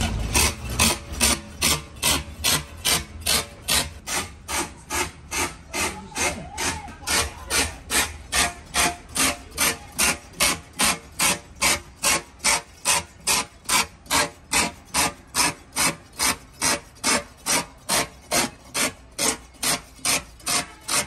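Steady rhythmic scraping strokes of a hand tool on rubber, about two strokes a second, typical of hand-rasping a tyre during repair; the strokes stop right at the end.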